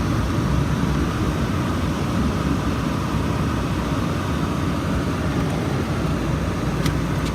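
Car on the move, heard inside the cabin: steady rushing road and wind noise over a low engine hum, breaking off near the end.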